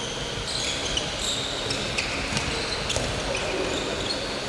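A handball bouncing and being caught, with short sharp knocks, and sports shoes squeaking on the wooden floor of a large, echoing sports hall.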